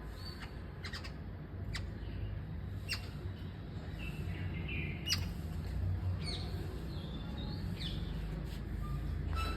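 Birds chirping, with short high calls and quick sweeping notes scattered irregularly throughout, over a steady low rumble.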